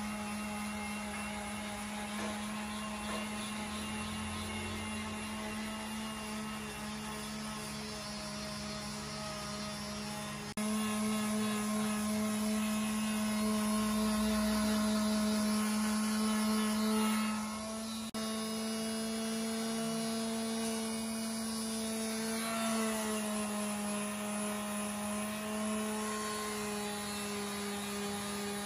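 Electric palm sander running steadily with a constant hum, its pad sanding dried filler flat on a painted wooden bed top. The level jumps up suddenly about a third of the way in, and the pitch dips slightly later on as the pad is pressed.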